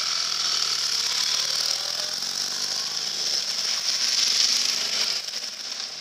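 Motorcycles riding through a shallow ford: the tyres throw up water in a steady hissing splash over the sound of the engines running. The splash is loudest about four seconds in and dies away after about five seconds, leaving the running water of the ford.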